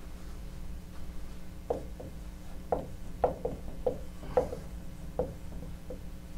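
Dry-erase marker writing a word on a whiteboard: about ten short rubbing strokes, starting a little under two seconds in.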